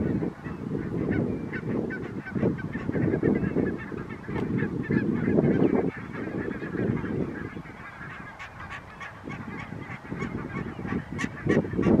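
A flock of barnacle geese calling, many short, high honks overlapping without pause. Low wind noise on the microphone runs under the calls and eases about two-thirds of the way through.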